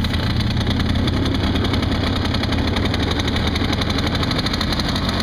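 1991 Polaris Trail Boss 350L's liquid-cooled 350cc two-stroke engine idling steadily just after a cold start on the pull starter.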